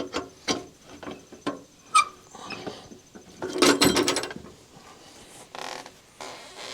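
Sawn wood being handled by hand with the sawmill not cutting: scattered knocks and clicks, a sharper clack about two seconds in, and a short rattling scrape around the middle, followed by fainter rustling.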